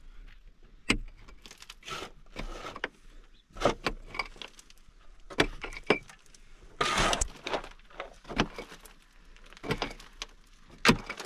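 Small pickaxe striking a wall of packed earth and gravel, about ten strokes at roughly one a second, each followed by a short rattle of loosened soil and pebbles.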